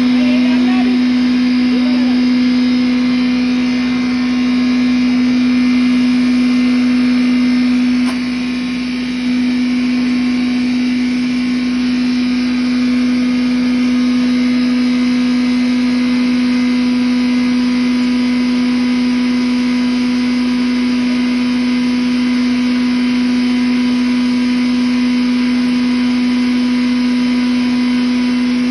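A 10 HP rice husk and cattle feed grinder running steadily: a strong, even hum with a noisy rush of grinding and blower air over it, dipping slightly for a moment about 8 seconds in.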